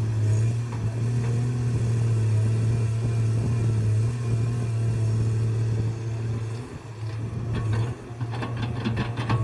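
A bulldozer's diesel engine runs steadily with a heavy low hum. Near the end comes a quick run of sharp metallic clanks.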